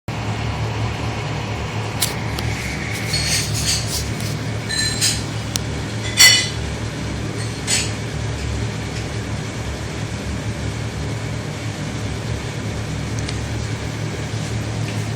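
Steady low hum with a handful of clinks and knocks of kitchenware being handled, the loudest about six seconds in.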